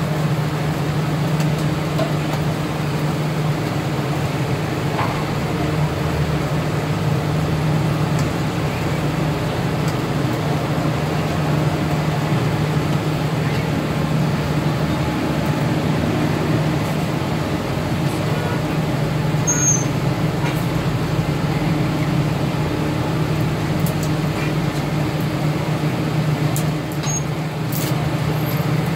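A steady low mechanical hum under a general din of street traffic, with a few faint clicks and knocks.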